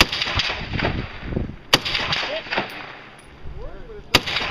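Rifle shots: three sharp cracks about two seconds apart, each trailing off in echo.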